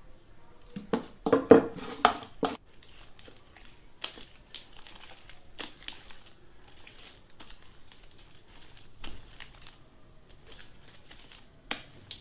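Sticky clear-glue slime being mixed and squished, still tacky as the baking soda activator works in: irregular wet smacks and crackling pops. The loudest flurry comes a second or two in, then scattered softer pops.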